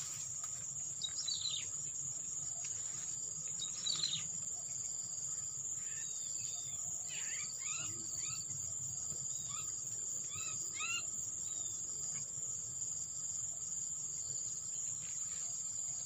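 Insects trilling in a steady, high, pulsing drone, with birds calling over it: a few short, downward-sweeping calls early on, then a cluster of quick chirps in the middle.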